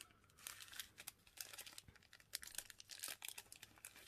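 Small plastic zip-lock bag of dried herbs crinkling faintly as it is handled and opened, in quick irregular crackles.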